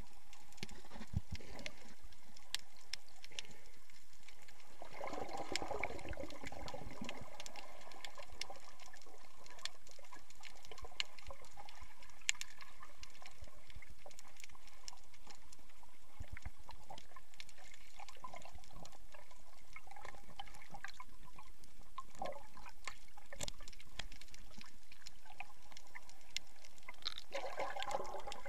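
Water heard through an action camera's microphone held underwater while snorkelling: a steady muffled wash with many small clicks and crackles, and bubbling gurgles about five seconds in and again near the end.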